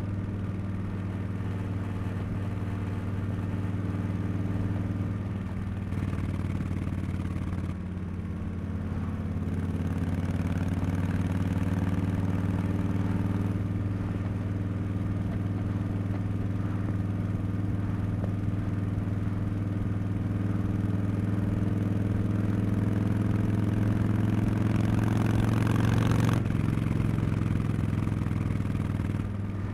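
Harley-Davidson Street Bob 114's Milwaukee-Eight 114 V-twin running through a Cobra Neighbor Hater slip-on exhaust while riding. It runs steadily with a few shifts in pitch and climbs gradually in loudness, then drops suddenly about 26 seconds in.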